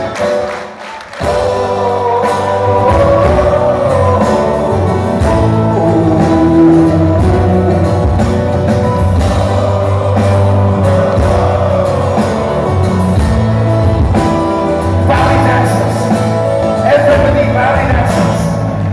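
Live rock band playing with a male lead singer, heard from the audience. The music drops briefly about a second in, then the full band comes back in and carries on.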